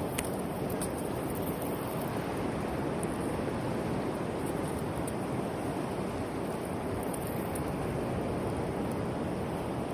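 Steady rushing of surf on a beach, an even wash of noise with no breaks.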